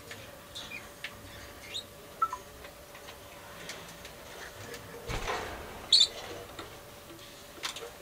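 Pet budgerigars giving short scattered chirps and small clicks, the loudest a sharp high chirp about six seconds in, with a brief rustle just before it. A faint steady hum sits underneath.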